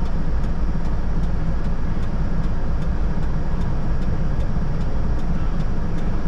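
Mitsubishi Canter truck's diesel engine running steadily, with a faint regular ticking about two to three times a second.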